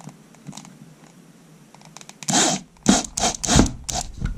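Short bursts from a corded impact drill driving a screw into a bookcase panel: five or six brief grinding runs, each a fraction of a second, starting about two seconds in, as the screw is seated.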